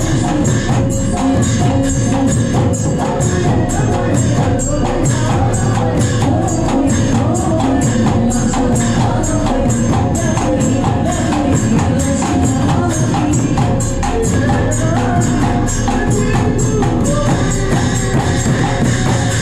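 Music with a fast, steady beat, sharp bright percussion strokes falling evenly several times a second over sustained pitched instruments.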